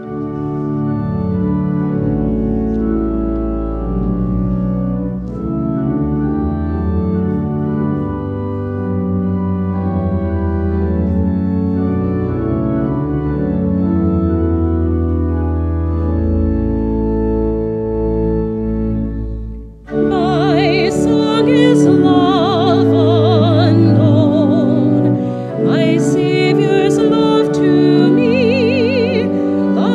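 Church organ playing slow, held chords over a deep pedal bass as offertory music at Mass. About two-thirds of the way through, a solo voice with a strong vibrato comes in and sings over the organ.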